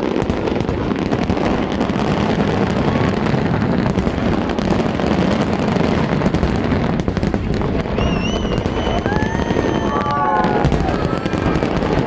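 Fireworks show going off in a continuous rumble of bursts and crackle, with voices from the watching crowd underneath. Several high whistle-like tones sound about two-thirds of the way through.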